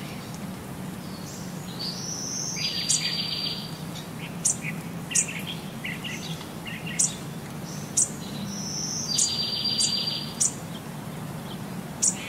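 High, bird-like chirps and short whistles, with a buzzy trill. The same twittering phrase comes twice, about six seconds apart, with sharp high ticks scattered between, over a low steady hum.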